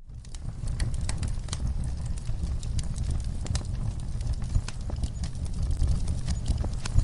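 Wood fire burning in a fireplace, crackling with irregular sharp pops and snaps over a low rumble of flames.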